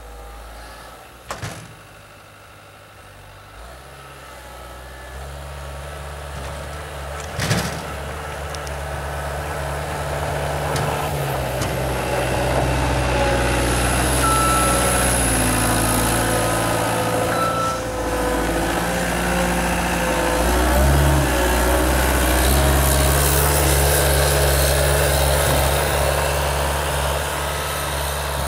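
Caterpillar 236B skid steer loader's diesel engine running as it drives and pushes snow, growing louder as the machine comes close and passes. Two sharp knocks sound about a second and a half in and again about seven seconds in.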